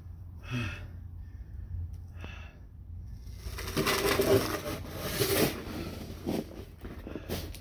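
Plastic snow shovel scraping and pushing through heavy snow, with a long loud scrape about halfway through as the blade passes close by, and a few short sharp knocks near the end.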